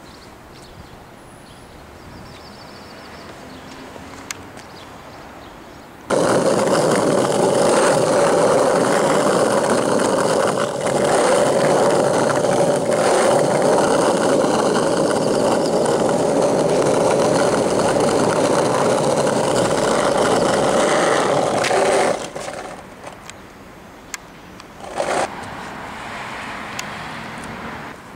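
A loud, steady motor running, which starts suddenly about six seconds in and cuts off sharply some sixteen seconds later; a short, loud burst of the same kind of noise follows a few seconds after.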